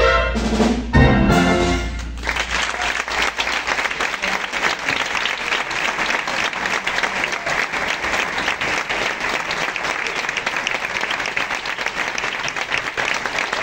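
Wind band playing its closing chords, with a last accented hit about a second in and the music cutting off about two seconds in, followed by steady audience applause.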